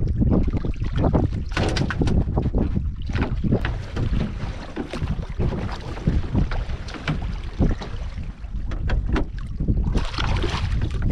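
Wind buffeting the microphone and choppy water slapping against a small wooden boat's hull, with scattered knocks and splashes as a fishing line is hauled in over the side. About ten seconds in there is a burst of splashing as a hooked singara catfish thrashes at the surface.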